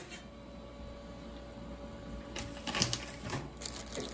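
Handling noises: a few short rustles and scrapes between about two and three and a half seconds in, with another near the end, over a low steady hum.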